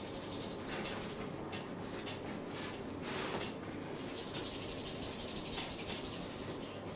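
Hands rubbing and stroking over bare skin during a massage, making a continuous soft rubbing hiss, with a brief louder swish about three seconds in.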